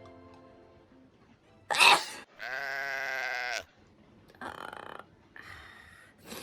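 A person reacting to a nasal swab in the nose: a sharp, loud outburst, then a long held vocal cry lasting about a second, followed by two softer breathy noises.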